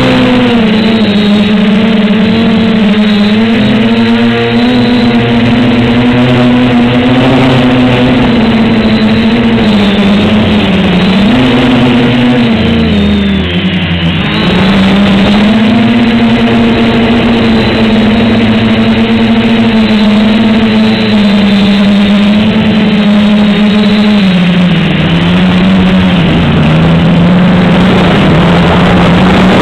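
An SK450 quadcopter's four brushless motors and propellers whir loudly, heard from a camera mounted on the craft. The pitch rises and falls with the throttle. About halfway through the motors spool down briefly and then pick back up.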